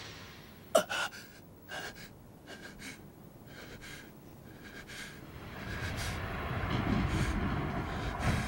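A person gasping and breathing hard after a sword-sparring bout. A short sharp sound about a second in is the loudest moment, and a low rumble swells up over the last few seconds.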